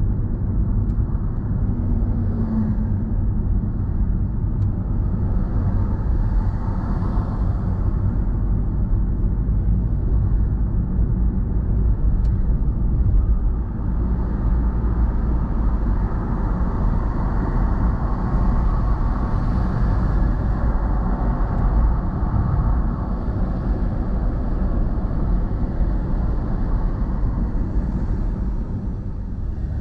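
Car on the move, heard from inside the cabin: a steady low rumble of road and engine noise.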